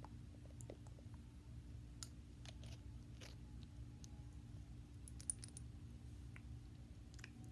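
Faint scattered clicks and taps of small objects handled close to the microphone, with one sharper click about five seconds in, over a steady low hum.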